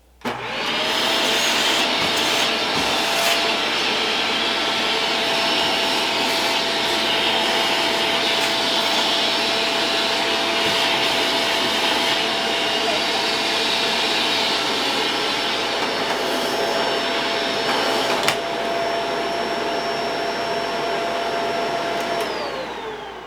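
Vacuum cleaner switched on, its motor whine rising to a steady high pitch with a rush of suction noise. It is switched off near the end and the whine falls away as the motor spins down.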